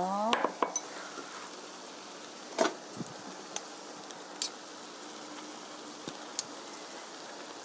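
Pot of braised chicken (jjimdak) simmering on a gas burner, a steady sizzling hiss. A few sharp clicks and clinks of metal utensils, kitchen scissors and tongs being handled, the loudest about two and a half seconds in.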